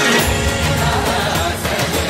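Background music: a song whose heavy bass beat kicks in right at the start, with steady rhythmic drum strikes.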